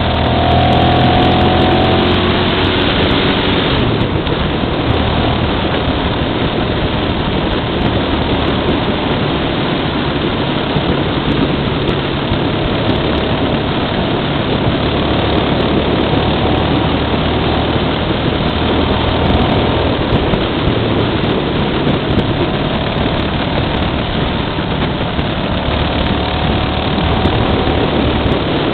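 Wind rushing over the microphone of a motorcycle riding at speed, with the bike's engine running underneath. In the first few seconds an engine note rises and falls.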